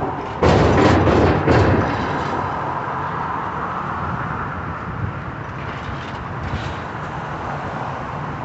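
Demolition work: a sudden loud crash about half a second in and another around a second and a half, then a steady rumble of heavy machinery.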